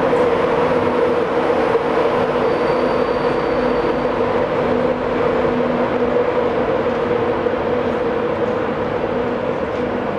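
Express passenger train moving slowly along the platform: a steady rumbling drone of its running gear and traction with a constant hum. About two and a half seconds in, a faint high-pitched squeal sounds for a second or so.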